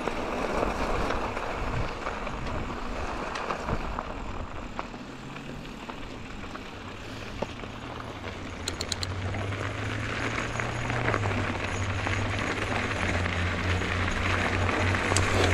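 Mountain bike tyres rolling fast over a loose gravel fire road, a steady crunching hiss, with wind rumbling on the action camera's microphone, the rumble growing stronger in the second half.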